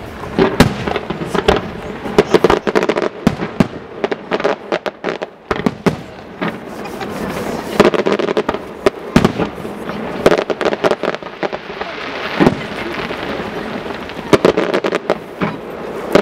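Professional fireworks display: aerial shells bursting and fan-shaped volleys firing, a dense, irregular run of sharp bangs that comes in loud clusters with short lulls between.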